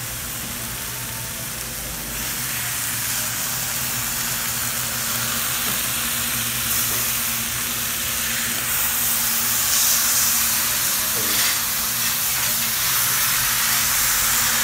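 Boneless beef roast sizzling as it sears on a hot flat-top griddle. The sizzle gets louder about two thirds of the way through as a piece is lifted and turned onto the hot plate.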